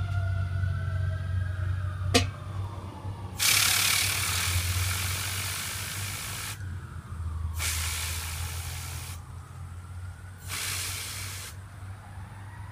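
Aerosol can spraying at a fidget spinner in three long hissing bursts, the first about three seconds long and the others shorter. A sharp click comes about two seconds in, and a faint whine glides up and down in pitch between the bursts as the spinner turns.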